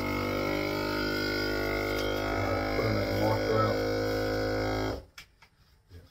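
FoodSaver vacuum sealer's pump running with a steady drone as it draws the air out of a bag of whole fish, then cutting off suddenly about five seconds in once the bag is pulled tight.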